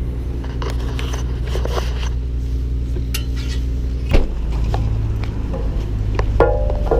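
Small metal parts clinking and scraping over a steady low hum, with a sharper knock about four seconds in. Music with plucked-sounding notes comes in near the end.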